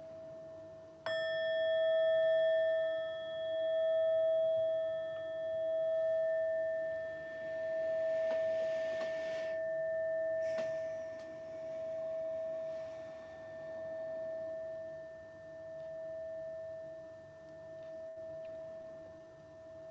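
A meditation bell of the singing-bowl kind is struck once about a second in and rings on with a slow, wavering pulse, its higher overtones dying away within a few seconds. The tail of an earlier strike is still ringing at the start. The bell marks the close of the guided meditation.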